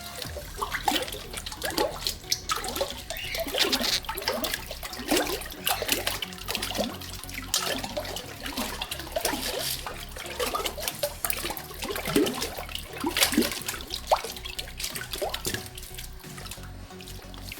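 Bathwater sloshing and splashing in irregular strokes as hands stir slime bath powder through it, with music playing underneath.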